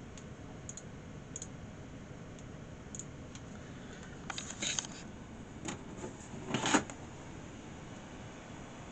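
A few light clicks and handling knocks over a steady low background hiss while a Windows desktop PC is being shut down. The loudest knock comes about two-thirds of the way through.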